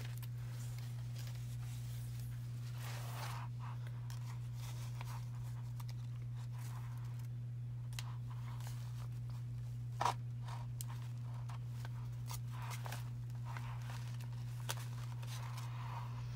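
Faint rustling and scratching of waxed thread being drawn snug through a paper journal signature and of the pages being handled, with one short louder rustle about ten seconds in, over a steady low hum.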